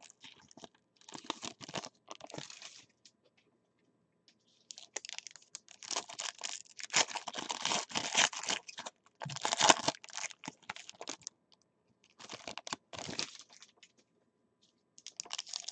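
Foil trading-card pack wrappers crinkling and tearing as packs are ripped open by hand, in several stretches with short pauses between them.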